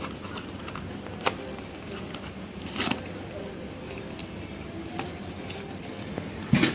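Handling of a plastic syrup bottle and its cardboard carton: a sharp click about a second in, a brief rattle near three seconds, and a louder knock near the end, over steady background hiss.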